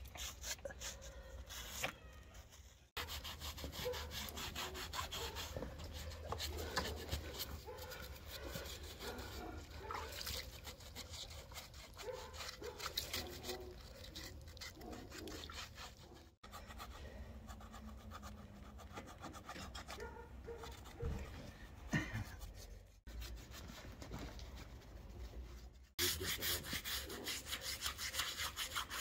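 Knife blades scraping the charred skin of a freshly singed pig carcass, a run of quick rasping strokes as the burnt hair and scorched outer layer are cleaned off.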